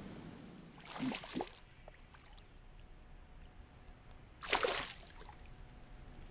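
Short water splashes from a largemouth bass released beside a kayak: a smaller one about a second in and a louder one about four and a half seconds in.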